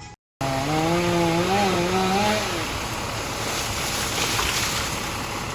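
Gas chainsaw running at high revs, starting suddenly, its engine note wavering. About two and a half seconds in the note fades out and a steady rushing noise carries on.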